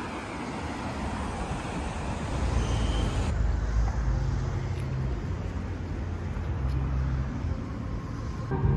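Outdoor ambient noise: a steady rush at first, then a low, uneven rumble after about three seconds, of the kind distant traffic makes.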